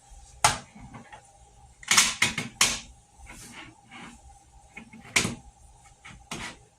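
Sharp clacks and knocks of a table saw's rip fence being handled and fitted onto the saw: one knock about half a second in, a quick cluster of clatters around two seconds, then single knocks near five and six and a half seconds.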